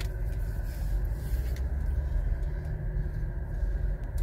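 Steady low rumble of a car heard from inside its cabin: engine and road noise as it drives.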